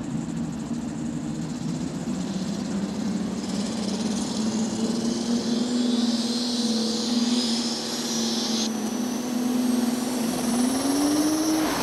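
The twin methanol-burning engines of a Light Modified pulling tractor running at a steady fast idle, with a high whine rising over the middle seconds. The revs climb near the end as the tractor is brought up in revs for a test pull.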